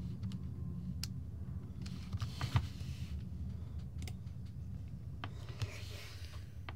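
A few faint, scattered clicks and two short rustles over a low steady hum of room noise.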